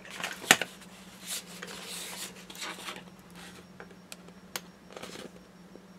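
Thin plastic stencil sheet rustling and crackling as it is handled and a stencil piece is peeled off its backing, with a few sharp light ticks later on. A steady low hum runs underneath.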